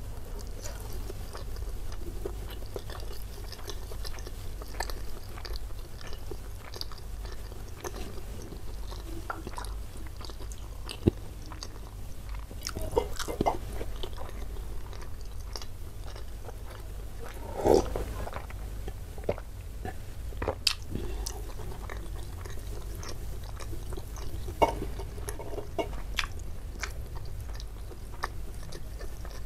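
Close-miked chewing of a mouthful of beef rendang: soft wet mouth sounds with scattered small clicks and smacks, one louder smack about eighteen seconds in.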